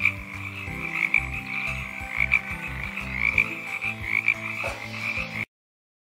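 Tree frogs calling: a continuous high-pitched trilling that swells in louder pulses roughly once a second, over a low steady hum, stopping abruptly near the end.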